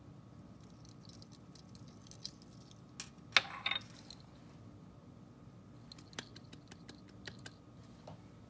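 Small ceramic bowl set down on a granite countertop with a sharp clack about three and a half seconds in, among light clicks and taps of handling before and after; a steady low hum underneath.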